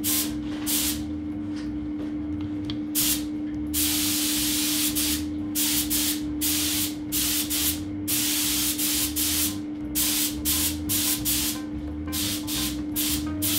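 Paint spray gun hissing in short trigger pulls, with one longer pass about four seconds in, as the colour coat goes onto a bicycle frame. A steady hum runs underneath.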